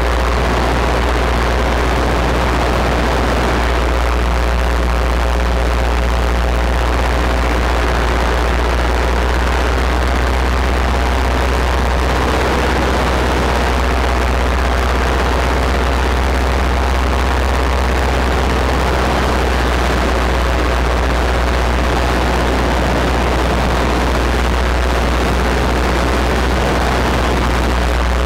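Paramotor (powered paraglider) engine and propeller running steadily at cruise in flight, with wind noise over it.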